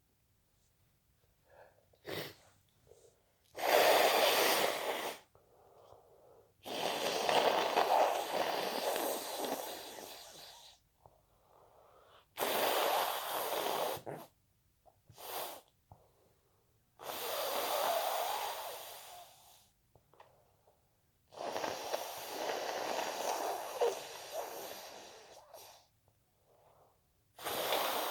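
A person sneezing repeatedly, with wet, intense sneezes and heavy, noisy breaths between them. There are about six loud bursts, each one to four seconds long, with short quiet gaps in between.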